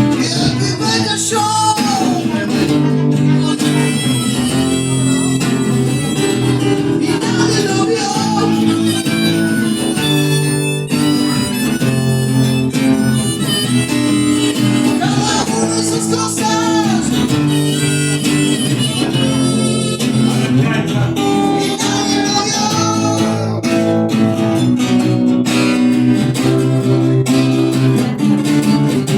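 Acoustic blues instrumental break: acoustic guitar playing chords under a harmonica that bends and slides its notes.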